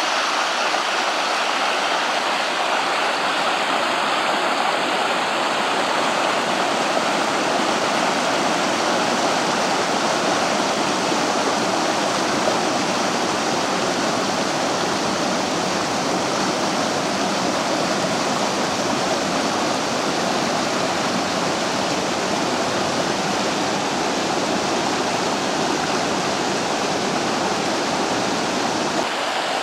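The Vydra river rushing over rocks: a steady, unbroken rush of fast-flowing water.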